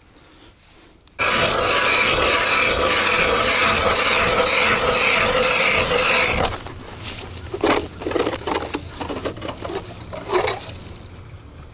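Hand ice auger drilling through lake ice: a loud rhythmic grinding, pulsing about twice a second, starts about a second in and stops abruptly after about five seconds. Softer scrapes and knocks follow.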